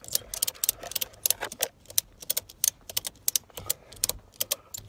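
Ratchet tie-down strap being cranked tight, its pawl clicking rapidly and irregularly, several clicks a second. The strap is being cinched down to hold a canoe on the car roof.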